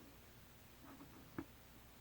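Near silence with faint soft handling sounds of chocolate sherbet slime and one small sharp click partway through.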